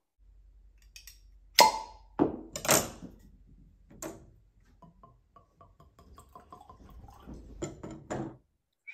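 Whiskey bottle being uncorked, with a few sharp cork pops and knocks, then whiskey poured into a tasting glass in a quick run of small glugging ticks that grows a little louder near the end.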